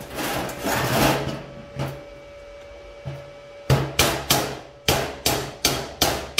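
Steel tube frame being handled on a metal workbench: scraping and rubbing of metal at first, then from a little past halfway a run of sharp, regular metallic knocks, about three a second, as the tube and threaded rod are worked into place.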